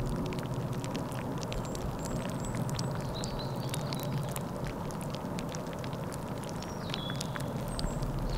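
Scattered crackling clicks and ticks with brief high chirps, over a steady low hum.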